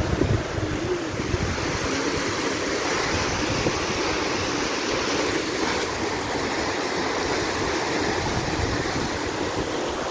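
Wind buffeting the microphone outdoors: a steady rushing noise with an uneven, gusty low rumble.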